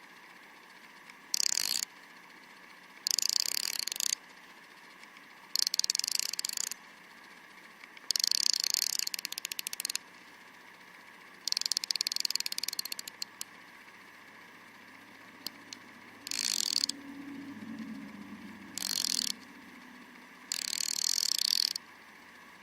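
TEKTON 90-tooth stubby ratchet being worked back and forth, its pawl clicking in fast, fine runs. Eight short bursts of ratcheting, with pauses between them.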